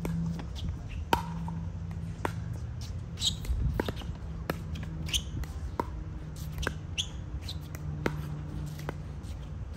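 Pickleball rally: paddles cracking against a plastic ball and the ball bouncing on the court, a sharp hit every second or so, with short sneaker squeaks on the court surface between hits, over a steady low hum.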